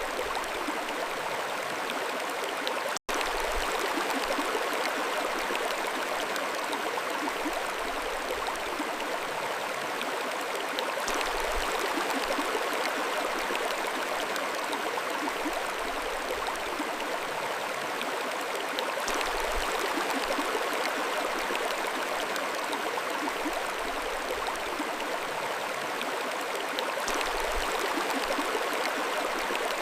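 Mountain stream flowing steadily, an even rush of water, with a split-second dropout about three seconds in.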